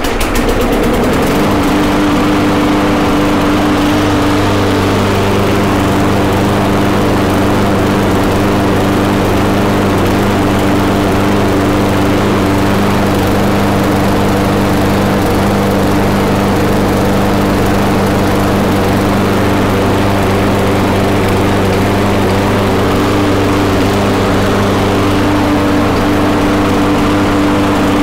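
Briggs & Stratton Quantum engine on a walk-behind lawn mower running steadily at its governed speed after a governor spring adjustment. The speed is now right, with a slight spitting back and forth that the owner puts down to the engine needing a better tune.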